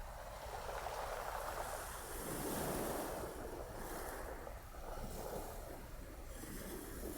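Ocean waves washing onto a shore as a soft background bed, swelling and receding.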